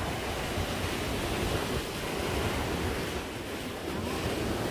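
Sea surf washing ashore, with strong wind buffeting the microphone as a steady rumble underneath.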